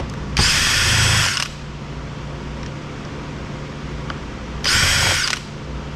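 Power driver running in two bursts, about a second long near the start and shorter near the end, backing screws out of a Roomba robot vacuum's plastic housing.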